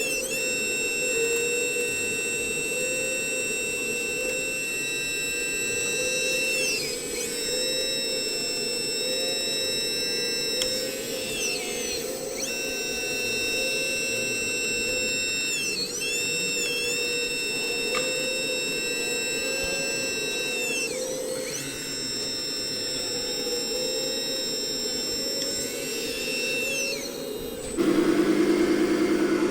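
High electric-motor and gear whine from RC model machines, several steady tones dipping in pitch and recovering about seven times as the models slow and speed up, over a steady hum. About 28 seconds in, a louder, rougher engine-like buzzing cuts in suddenly.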